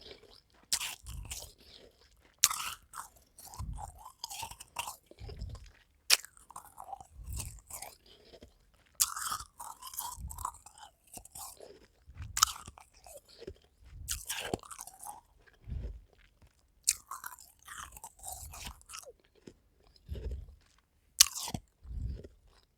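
Close-up crunching of powdery, frost-covered half-moon ice cubes: a sharp crisp bite every few seconds, each followed by a run of crunchy chewing.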